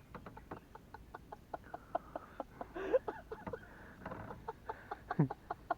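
Faint short bird calls over a run of light, irregular clicks.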